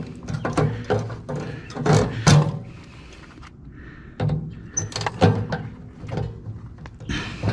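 Irregular metal knocks and clanks from a water heater's casing and fittings being worked on, several a second, loudest about two seconds in and again about five seconds in.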